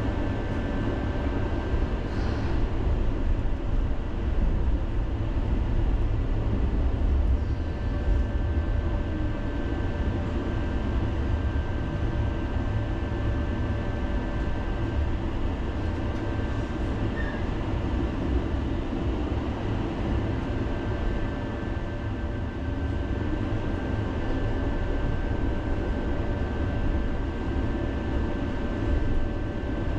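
Tram running on its rails, heard from inside the car: a steady low rumble with a faint high whine that comes and goes.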